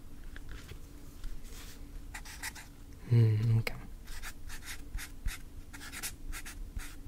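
Scratchy strokes of writing on paper, close to the microphone, a stroke every fraction of a second. About three seconds in there is a short closed-mouth hum.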